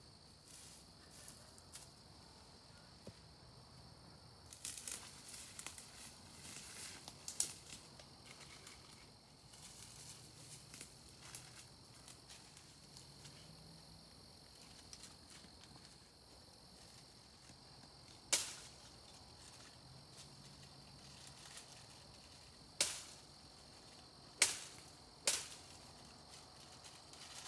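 Dry wood snapping: several sharp cracks a few seconds apart, the loudest in the second half, like dead twigs being broken off a tree. Earlier, a spell of crackling rustle as he moves through dry brush.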